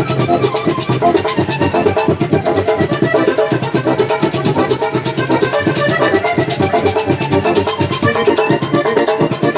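A vallenato puya played live: fast instrumental music with a dense, quick, even beat under sustained melodic tones, led by accordion.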